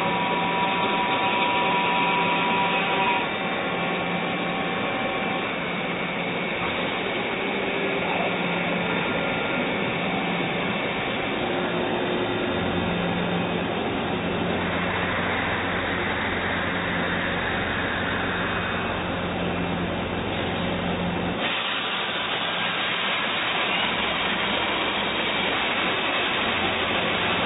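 Doosan Puma MX1600ST CNC mill-turn machine cutting metal: a steady whirring hiss with several steady tones from the spindle and tool at work. The sound shifts abruptly about twenty seconds in.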